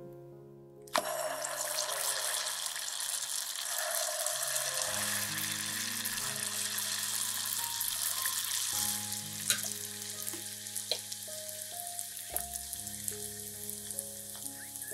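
Pieces of yogurt dough dropped into hot vegetable oil, deep-frying with a sudden loud sizzle that starts about a second in. The dense hiss carries crackles and pops and eases a little partway through.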